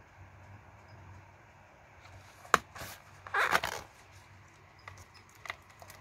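Plastic Blu-ray case snapping open with one sharp click, followed by about half a second of plastic rustling and scraping as the case is swung open, then a few light clicks of fingers on the case and disc.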